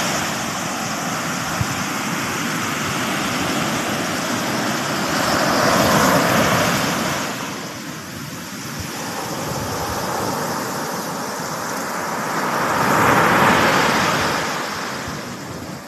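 Ocean surf breaking and washing up a sandy beach, a steady rushing that swells twice, about six seconds in and again near the end.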